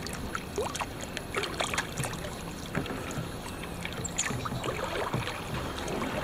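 A double-bladed kayak paddle dipping into river water, alternating sides, with small splashes and drips between strokes.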